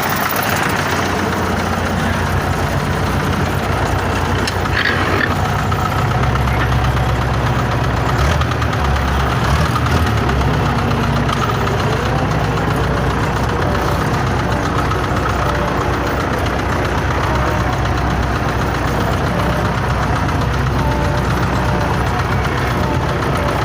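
Truck engine idling steadily with a knock, a fault of four years' standing that checks of the camshaft key, front cover, pump and injectors have not found.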